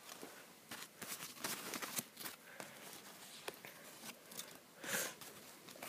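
Faint crackling and clicking of Pokémon trading cards and a foil booster-pack wrapper being handled, with a short rustle near the end.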